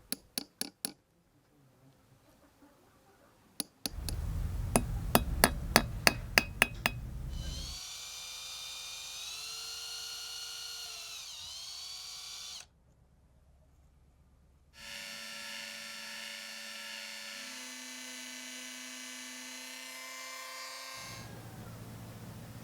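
Small high-speed electric drill running with a steady whine, its pitch dipping briefly as it is loaded, then running again after a break. Before it, a handful of sharp metallic clicks.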